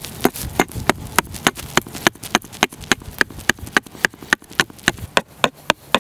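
Small axe chopping a wooden stick against a log, a quick, even run of sharp strokes at about three a second, shaping the blunt chisel end of a digging stick.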